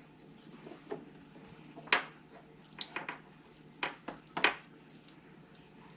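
Small sharp plastic clicks and taps, about seven of them, as wires held in a load bar are worked into an RJ45 connector body. The loudest comes about two seconds in, with another strong one near four and a half seconds.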